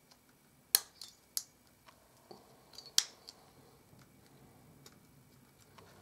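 Sharp, irregular metallic clicks and snaps from a ratchet crimping tool being worked and handled, about seven in all. The two loudest come about a second in and about three seconds in.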